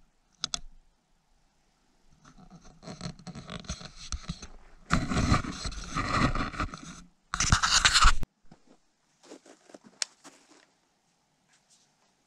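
Scraping and rustling handling noises in irregular bursts, loudest in the middle, with a few sharp clicks: gear being handled while a can cannon is made ready to fire.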